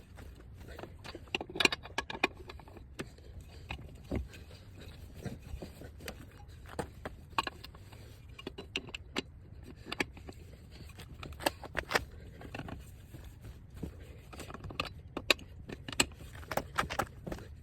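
Irregular metallic clinks, knocks and scrapes of tools and metal parts being handled while changing a car tire, over a steady low rumble.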